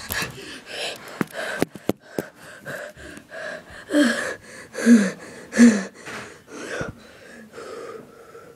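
A boy gasping for breath, loud voiced breaths falling in pitch, about a second apart, from the effort of climbing stairs. A few sharp knocks sound in the first two seconds.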